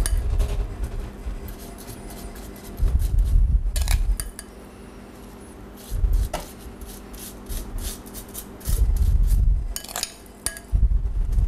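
Metal spoon scraping and clinking against a glass bowl as a beetroot cure mixture is spooned out, in many quick clinks. Several dull low thumps come at intervals.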